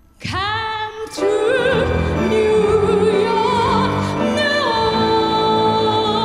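A woman singing into a microphone with wide vibrato, backed by a chamber orchestra of strings and piano. Her voice starts alone on a held note and the orchestra comes in about a second in.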